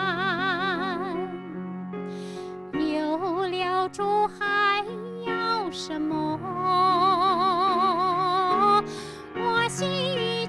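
A woman singing a slow Mandarin worship song solo into a handheld microphone over a soft, sustained accompaniment. She holds two long notes with wide vibrato, one at the start and one about two thirds of the way through.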